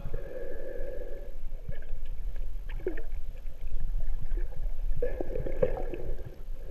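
Muffled underwater sound through a camera housing: an uneven low rumble, with two short gurgling bursts of bubbles, one at the start and one about five seconds in.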